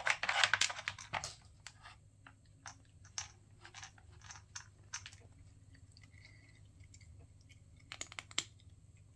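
Cat crunching dry treats: a dense run of crunches in the first second or so, scattered single crunches over the next few seconds, and a short cluster near the end.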